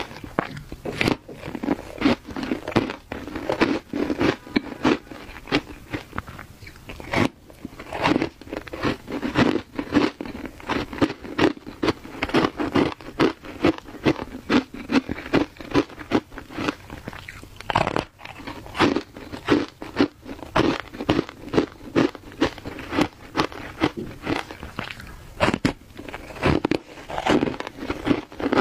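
Blocks of shaved ice dusted with matcha powder being bitten and chewed: a steady, dense run of crisp crunches, several a second.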